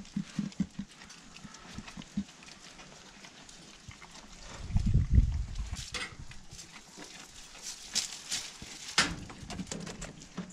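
Goat eating banana peels off the straw: chewing, with dry straw and peels rustling and crackling. A low thump comes about five seconds in.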